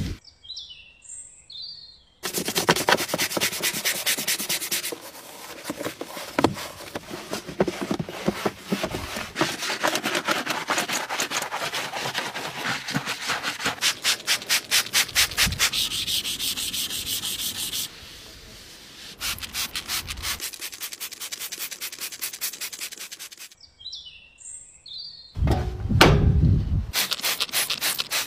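Stiff brush scrubbing back and forth in quick, even strokes, with short breaks between clips. Near the end comes a loud rushing burst.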